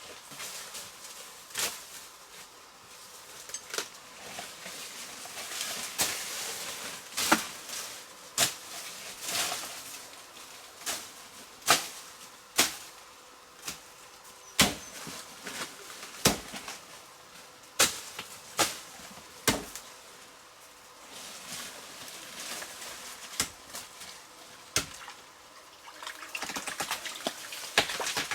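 A run of sharp, irregular knocks or snaps, roughly one a second and varying in strength, over a faint hiss.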